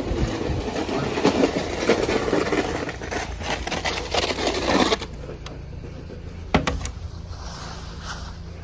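Garant snow shovel pushed along a concrete walkway, its blade scraping and rattling over the pavement through a thin layer of snow, then stopping abruptly about five seconds in. A couple of sharp knocks follow.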